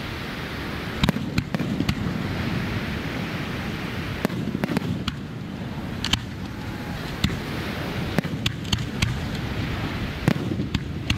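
Aerial fireworks shells bursting overhead: about a dozen sharp bangs at uneven intervals, some in quick pairs, over a steady low rushing background.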